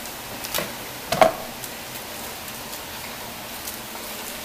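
Steady sizzling hiss of ground meat frying in a pot, with a light click and then a sharper knock just over a second in as a knife cuts a seasoning packet on a plastic cutting board.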